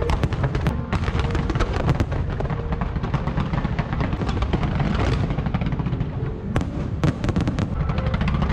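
Fireworks display: many sharp bangs and crackling bursts over a deep rumble, thickest in the first couple of seconds and again near the end.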